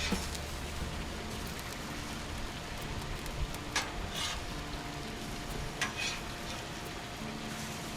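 Zucchini cakes sizzling in oil on a Blackstone flat-top griddle, a steady hiss, with three sharp scrapes of a metal spatula against the griddle plate, two close together about four seconds in and one near six seconds.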